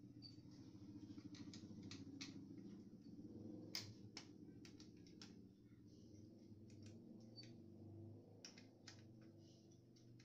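Faint, irregular clicks and taps, a dozen or more, from small plastic and metal printer parts being handled during disassembly, over a low steady hum.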